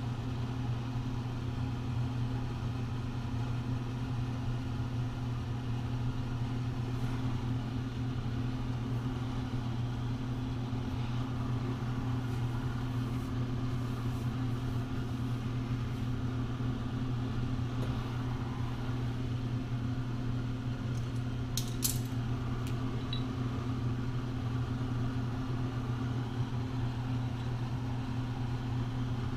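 Steady low machinery hum, with a few faint ticks and a short cluster of sharp metallic clicks about three quarters of the way through.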